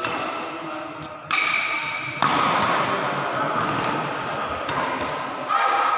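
Badminton doubles rally in a large hall: racket hits on the shuttlecock, several sudden strikes, with players' voices, all echoing.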